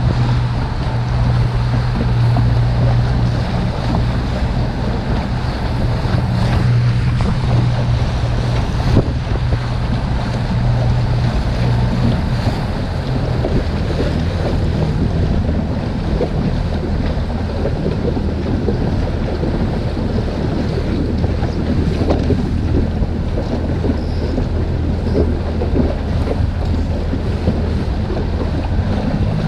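Outboard motor on an inflatable boat running steadily, with wind buffeting the microphone and choppy water slapping the hull. About halfway through the engine note drops to a lower, slower drone as the throttle is eased back.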